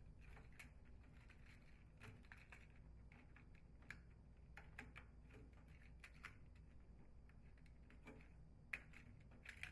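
Faint, scattered clicks and small plastic ticks of wire connectors being pulled off the old front-load washer door latch and pushed onto the new latch's terminals, with a slightly sharper click near the end.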